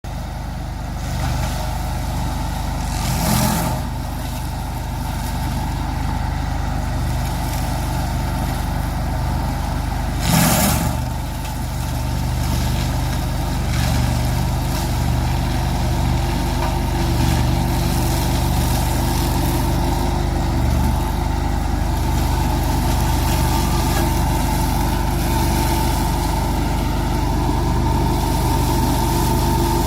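Engine of a remote-controlled grass mower running steadily under load, with two brief louder bursts of noise about 3 and 10 seconds in.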